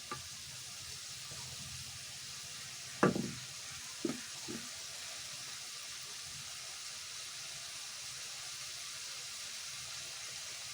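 Prawns frying in oil in a pan, a steady sizzle, with a few sharp knocks about three and four seconds in, the first the loudest.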